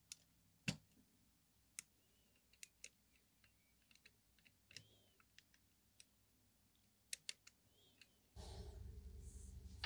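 Faint, scattered small clicks and ticks of a plastic alignment tool being worked in an adjustment slug on the Grundig Satellit 2100's chassis, near silence between them. About eight seconds in, a steady low hum starts.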